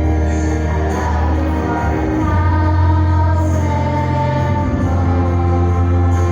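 Choir singing long held chords over a sustained low accompaniment, the harmony shifting twice.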